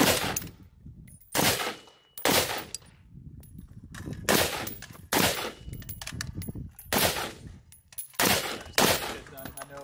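AR-15-style carbine fired in single shots: about eight sharp reports spaced unevenly, roughly a second apart, each followed by a short echo.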